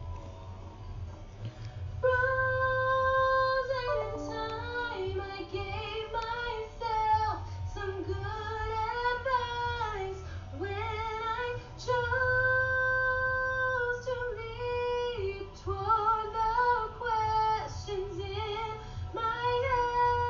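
A high female voice singing a wordless melody of long held notes and sliding runs, over a steady low drone in the backing music.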